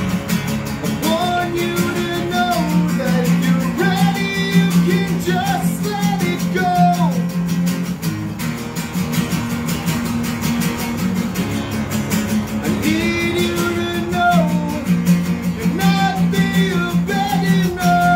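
Two acoustic guitars playing a song together live, with held chords underneath that change every few seconds and a bending melody line above them.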